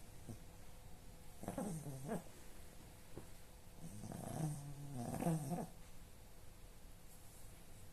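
A sleeping animal snoring: two snores, the first short about a second and a half in, the second longer, lasting about two seconds.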